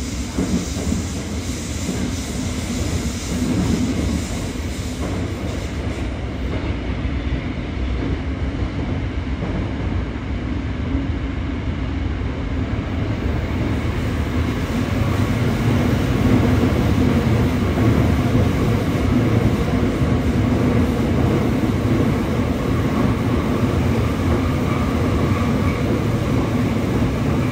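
Running noise inside a Yokohama Municipal Subway 3000S-type car with Mitsubishi IGBT-VVVF control, heard in a tunnel: a steady rumble of wheels on rail mixed with traction-motor hum, growing a little louder about halfway through.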